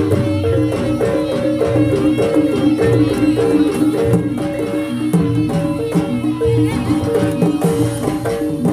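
Jaranan accompaniment music from a Javanese gamelan-type ensemble: a steady, busy pattern of short repeated pitched notes over drum beats.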